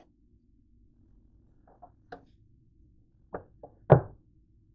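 A few light taps and clicks, then one louder knock near the end, from handling around a countertop contact grill and a plate.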